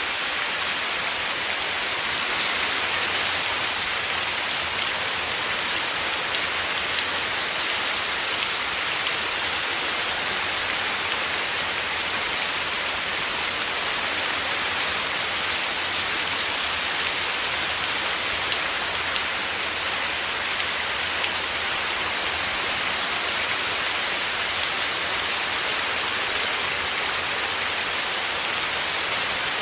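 Heavy rain falling steadily, a dense, even hiss of drops with no pauses or thunder.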